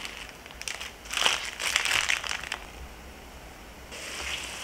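Plastic zip-top bag crinkling in irregular bursts as hands handle and press it closed over chopped tomatoes. Near the end a steady hiss takes over: tomato and smoked herring sauce bubbling in a frying pan as its lid is lifted.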